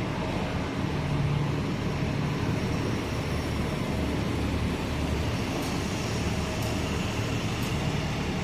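City transit bus engine running as the bus pulls away, a steady low rumble that echoes in a concrete parking garage.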